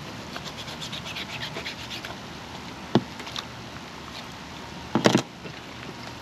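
Hands pulling the guts out of a slit-open flathead catfish: a quick run of wet scratchy clicks, a sharp knock about three seconds in, and a louder brief clatter just after five seconds.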